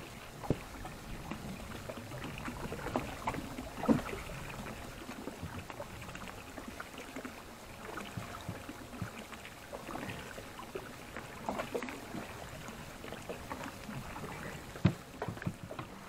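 Water splashing and sloshing at the side of a small boat, with scattered knocks and bumps against the hull, as a big grouper is hauled out of the water by hand. The sharpest knocks come about 4 seconds in and near the end.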